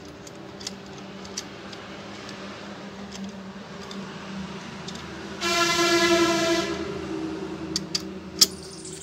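A few sharp metallic clicks of a long wrench working the cylinder head bolts, then a loud single-note horn blast about a second long a little past halfway, and a few more clicks near the end.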